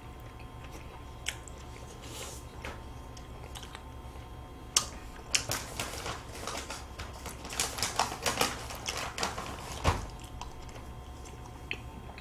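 Close-miked eating of chocolate-cookie ice cream sandwiches: quiet mouth clicks and smacks mixed with the crinkle of paper wrappers. The clicks come scattered, then thicken into a busy crackle in the middle before thinning out again.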